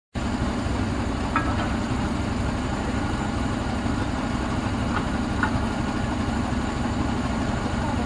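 Truck crane engine running steadily with a low rumble during work, with a few light knocks about a second and a half in and twice around five seconds.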